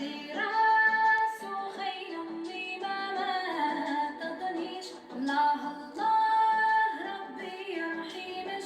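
Background music with a woman singing, her notes held and bending in pitch.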